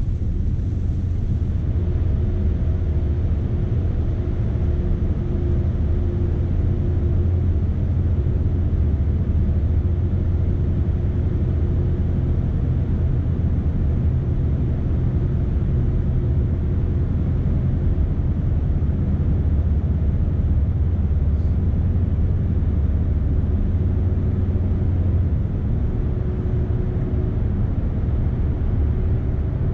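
Scania S520 truck's V8 diesel engine running under load while driving, with road noise, heard as a steady low drone with a faint higher hum. The engine note shifts slightly near the end.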